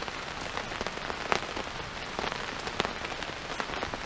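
Rain falling steadily, with many scattered sharp ticks and crackles over an even hiss.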